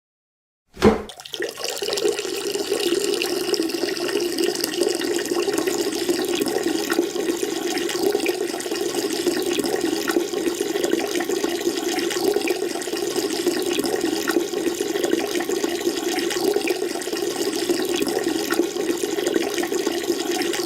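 Peeing sound effect: a steady stream of urine splashing into toilet-bowl water, starting suddenly about a second in and running on evenly for about 20 seconds.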